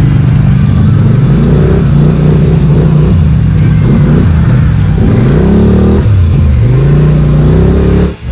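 Polaris Sportsman 850 XP ATV engine revving up and down again and again as the throttle is worked on a muddy trail, heard close up from the machine. The pitch rises and falls several times, and the sound drops out briefly near the end.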